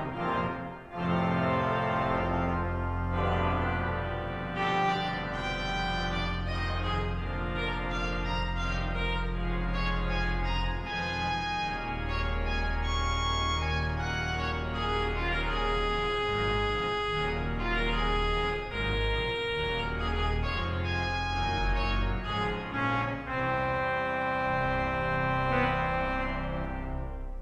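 Church pipe organ playing: full sustained chords on the manuals with moving upper notes over deep held bass notes.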